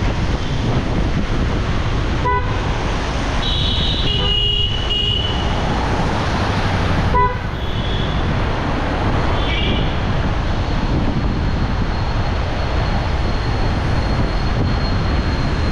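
Steady rushing road-traffic noise in the rain, with vehicle horns tooting briefly several times.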